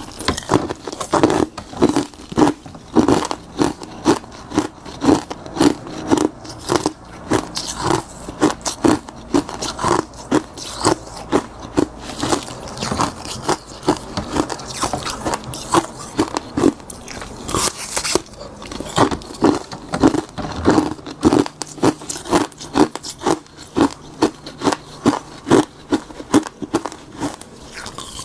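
Close-miked biting and crunching of frozen tartary buckwheat tea ice: a steady run of sharp, brittle crunches, about two to three a second.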